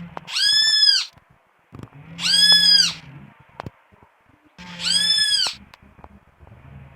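A bird calling three times, each a loud, drawn-out, ringing call just under a second long that rises and falls in pitch, about two seconds apart.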